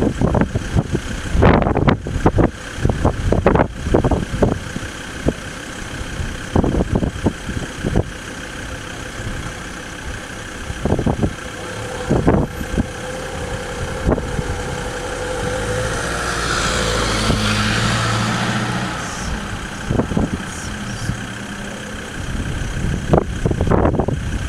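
A motor vehicle's engine runs nearby, louder for a few seconds past the middle, with scattered knocks and bumps throughout.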